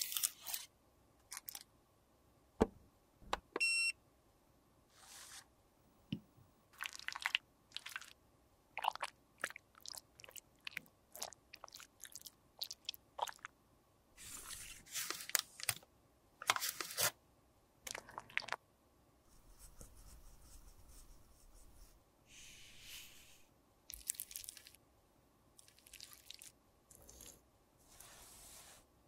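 Cosmetics being handled and worked by hand: irregular crisp crunches, clicks and scrapes, with a short tone about four seconds in and a couple of stretches of steady hiss in the second half.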